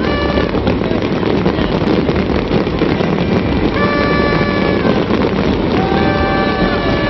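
A fireworks display crackling and banging densely without a break. Three held, steady tones of about a second each rise above it: one at the very start, one around the middle and one near the end.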